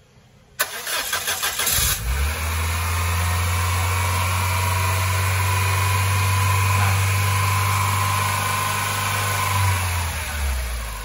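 Peugeot 406 petrol engine being started after a carbon-clean treatment of its combustion chambers. The starter cranks rapidly for about a second and a half, then the engine catches and settles into a steady idle.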